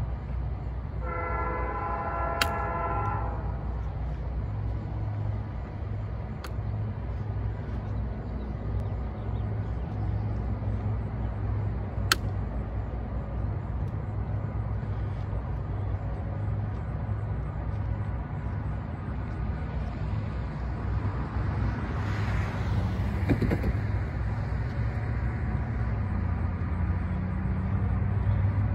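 Distant multi-chime horn of a Norfolk Southern maintenance-of-way train, one blast of about two and a half seconds beginning about a second in. A steady low rumble from the approaching train follows and grows louder toward the end, with a brief swell of noise about three-quarters of the way through.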